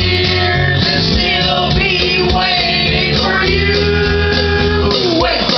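A rock song with singing voices over guitar and bass; a long held note slides down near the end.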